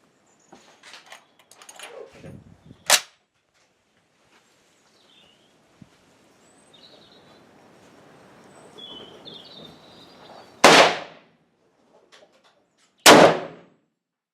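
Two rifle shots about two and a half seconds apart near the end, each a loud report that trails off briefly, after a shorter sharp crack about three seconds in.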